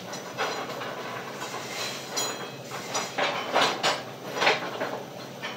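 Metalwork on a steel welding table: a run of short, irregular clanks and crackles, loudest a little past the middle.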